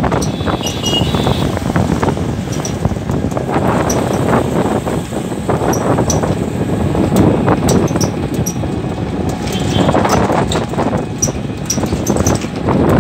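Steady rushing wind and road noise from riding in a moving open-sided rickshaw, with scattered light clicks and rattles.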